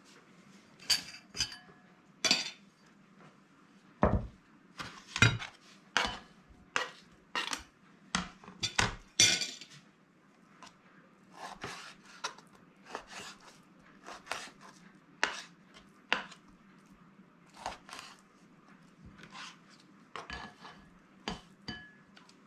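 Kitchen knife cutting zander fillet into strips on a plastic cutting board: irregular sharp taps and clicks of the blade striking the board, with a few clinks of the glass bowl the pieces go into.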